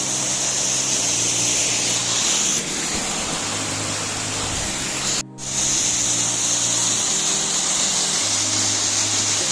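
Steady rushing of a waterfall, with instrumental background music holding long low notes underneath. The sound drops out for a moment about five seconds in.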